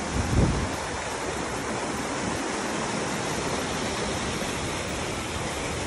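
Creek water rushing over rocks in small whitewater cascades, a steady even hiss, with a brief low thump about half a second in.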